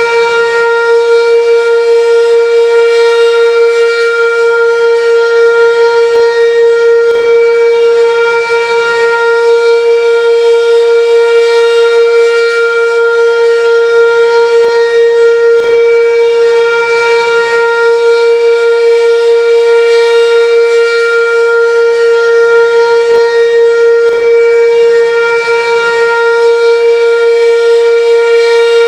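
Sentry 16V2T-B outdoor warning siren sounding its steady alert tone at full speed for a test, holding one loud, unchanging pitch with strong overtones.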